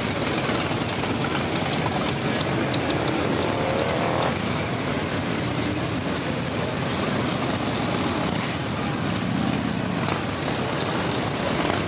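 Motorcycle engines running as a line of cruiser bikes rolls slowly past, with one engine revving up about three to four seconds in.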